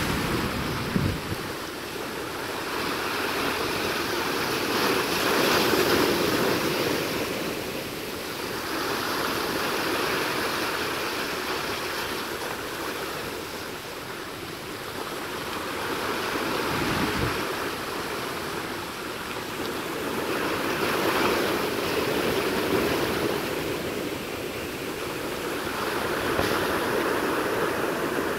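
Sea waves breaking and washing over the rocks of a jetty: a continuous hiss of surf that swells and ebbs every few seconds. Two brief low thumps, about a second in and about two thirds of the way through.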